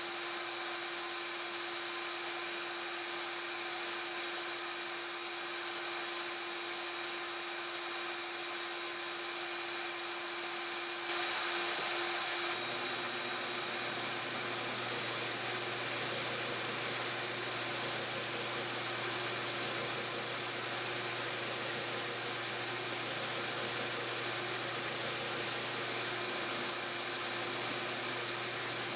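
Drill press running steadily with a Forstner bit boring into poplar, a steady hum under it. About eleven seconds in a louder, even rushing noise joins: a shop vacuum hose drawing off the chips.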